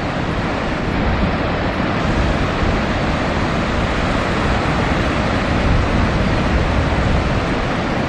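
Ocean surf breaking, with wind rumbling on the microphone: a steady wash of noise with no distinct engine note.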